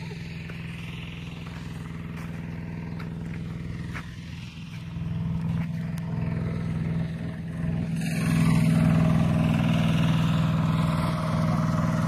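Tractor engine running steadily, growing louder about five seconds in and again near eight seconds in.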